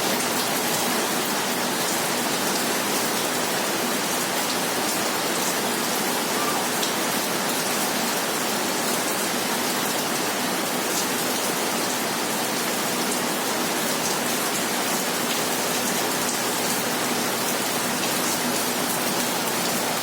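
Steady hissing rush with a faint low hum from an inverter air conditioner's outdoor unit running at full power while R410A refrigerant is charged in; the system is still short of charge, with suction pressure below 100 psi.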